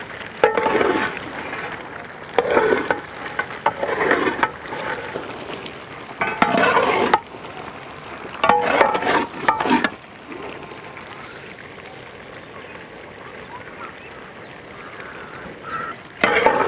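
Chicken curry frying in a pot, with irregular bursts of scraping as it is stirred during the first ten seconds, then a steadier, quieter sizzle.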